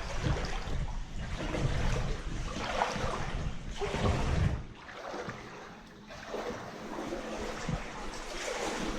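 Wellington boots wading through shallow standing water, sloshing and splashing with each step, with a short lull about halfway.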